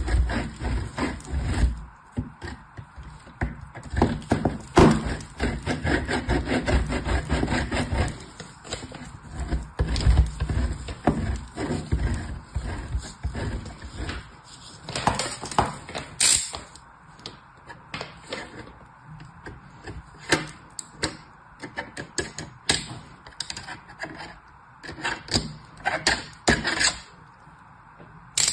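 A bar of soap grated on a metal box grater: quick rasping strokes, with sparser crisp clicks and scrapes through the second half.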